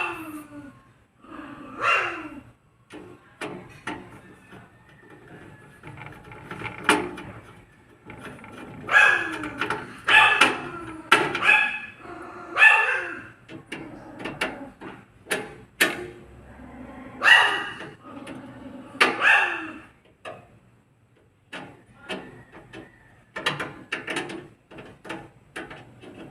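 Screws being tightened with a screwdriver into a motherboard in a computer case, heard as small clicks and knocks. Over them, short loud animal calls come singly and in runs: one about two seconds in, several in the middle, and two more later.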